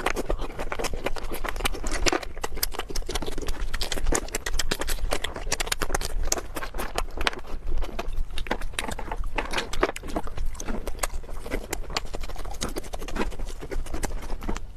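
Close-miked chewing and mouth sounds of a person eating: a dense, uneven run of sharp wet smacks and clicks.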